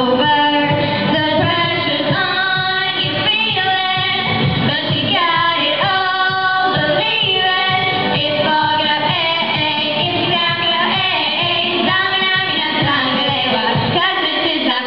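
Young girls' choir singing a pop song over amplified backing music, two solo voices leading through the microphones.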